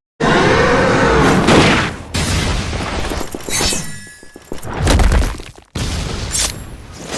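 Anime fight sound effects in quick succession: heavy booms and impacts with crashing, shattering debris. The sound cuts out briefly at the very start and again a little before the end.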